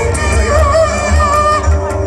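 Live experimental music: a voice sings with a wavering, bending pitch over a dense layered drone and a heavy, steady low rumble.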